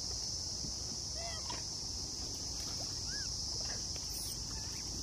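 Steady high-pitched drone of insects, with a few short rising-and-falling chirping calls about a second in and again near the middle.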